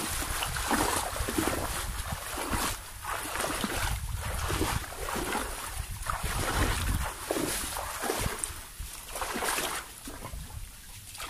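Shallow water and mud sloshing and splashing in irregular strokes about once a second, as someone wades and gropes by hand through a mangrove swamp.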